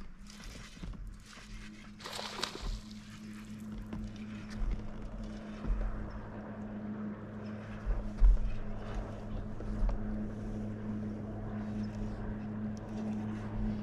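Electric bow-mounted trolling motor running with a steady hum, over low irregular thumps of wind on the microphone; a short rush of noise comes about two seconds in.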